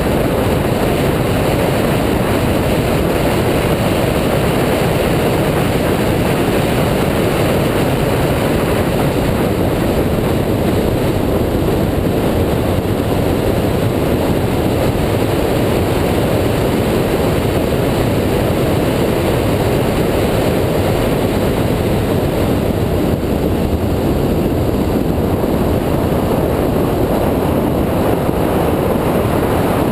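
2004 Mini Cooper S driving at speed, heard from a bonnet-mounted camera: a steady, loud rush of wind and car noise with no distinct engine note.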